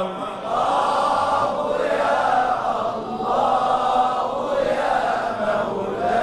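A group of voices chanting together in a slow devotional chant, swelling and easing about once a second.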